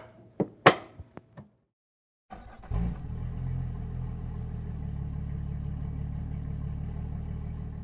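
A few sharp knocks in the first second and a half. After a short silence, an engine starts with a surge about two and a half seconds in and then runs steadily.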